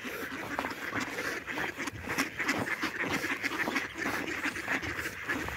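A flock of mallards quacking, many short calls overlapping in a continuous chatter.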